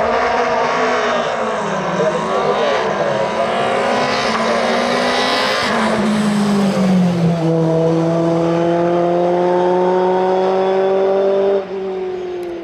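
Tatuus Formula Renault 2000 single-seater's four-cylinder racing engine at full effort: in the first half the note falls and rises again through several gear changes, then it climbs slowly and steadily in one gear as the car accelerates away, and the sound drops off abruptly near the end.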